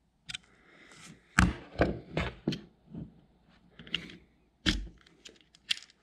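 Razor blade clicking and scraping on the metal contact springs inside a USB port in a wall outlet as they are pried up to make the loose port grip tighter. The sharp clicks are irregular, with two louder knocks, one about a second and a half in and one near the end.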